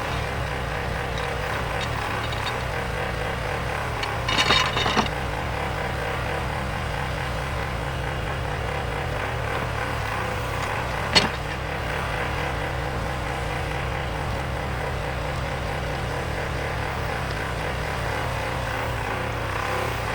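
Bobcat loader's engine running steadily while it works a backhoe attachment, with a short rattle of knocks about four seconds in and one sharp knock near the middle.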